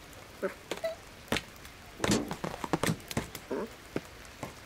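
Cartoon foley of a cat flap clattering as a kitten squeezes through it: a run of sharp knocks and clicks, busiest in the middle, with a few short cat grunts and mews.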